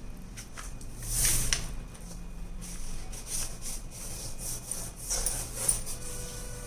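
Blouse material being folded and rubbed flat by hand on a table: a few short rustling swishes.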